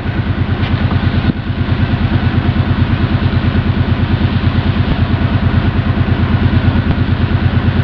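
Arctic Cat ATV engine idling steadily, close by, with an even pulsing beat.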